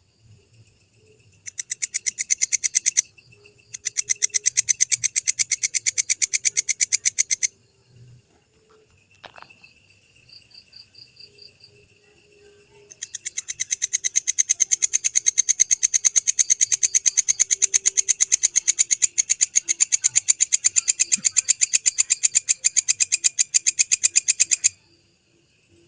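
Walang kecek bush cricket (katydid) calling in rapid, high-pitched ticking trains of more than ten pulses a second. There are two short bursts in the first half and one long unbroken burst from about halfway to near the end. Fainter insect chirps sound between the bursts.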